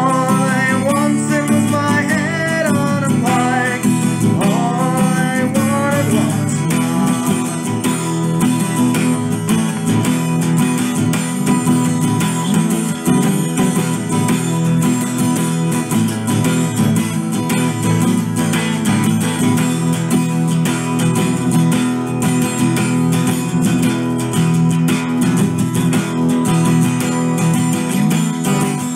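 Acoustic guitar strummed fast and steadily. A man's singing voice runs over it for about the first six seconds, and then the guitar goes on alone.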